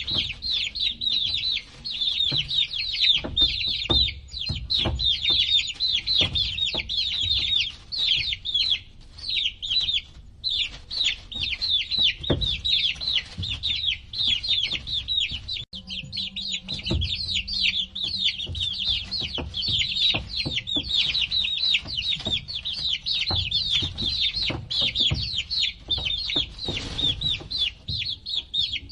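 A group of baby chicks peeping continuously, many short, high, falling peeps overlapping, with a brief lull about ten seconds in. Scattered soft knocks and taps sound beneath them.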